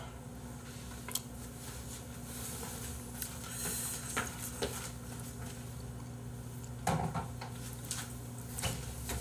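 Scattered light knocks and clatter of a low table and plastic takeout food containers being handled and cleared away, a few separate clunks spread out over a steady low room hum.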